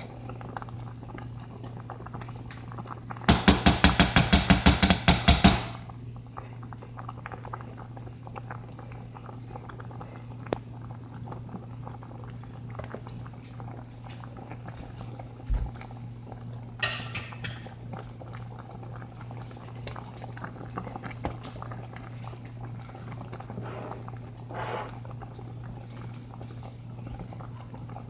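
A spoon struck rapidly against a cooking pot, about fifteen quick clanks in a little over two seconds, then a few lighter knocks. The pot simmers under a steady low hum.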